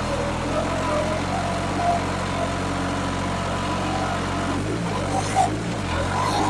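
New Holland 3630 tractor's diesel engine running steadily under heavy load while pulling a harrow through soil, hard enough to lift the front wheels. About five seconds in, the engine note dips and wavers briefly.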